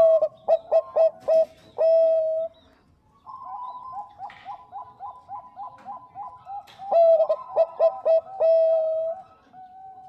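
Bangkok-type perkutut (zebra dove) singing its staccato cooing song. There are two loud bouts of quick clipped notes, each ending in a longer held note, and a softer fast run of coos between them.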